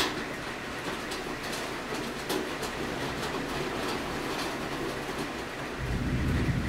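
Heavy rain falling steadily, with irregular sharp taps of drops striking the window. A louder low rumble comes in near the end.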